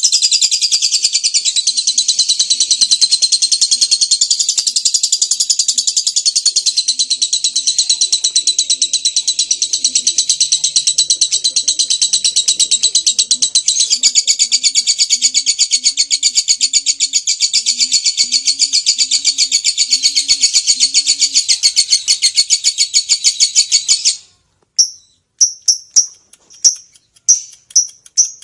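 Lovebird singing its long 'ngekek' chatter: an unbroken, high-pitched run of very rapid notes lasting about twenty-four seconds, which stops abruptly and is followed by a few short separate chirps.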